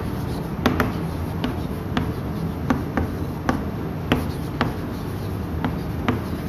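Chalk writing on a chalkboard: sharp, irregular taps and ticks of the chalk striking the board as the letters are formed, roughly two a second.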